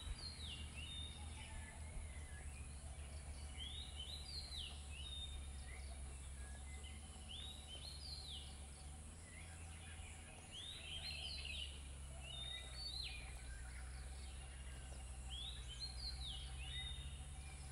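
A bird outdoors repeating a short phrase of quick, high notes about every three to four seconds, over a steady low rumble of background noise.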